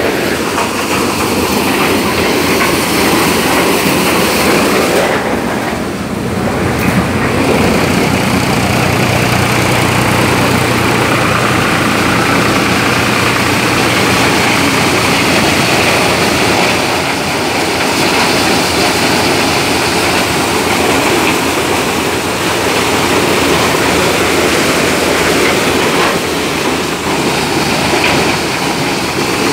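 Tractor-driven threshing machine running at work with the tractor's diesel engine powering it: a loud, steady din of machinery, dipping briefly about six seconds in.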